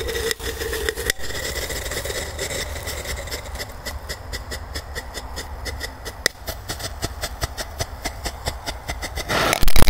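Firecrackers going off inside a tin can: a fizzing hiss, then a steady run of sharp crackling pops about five a second, and a loud blast just before the end.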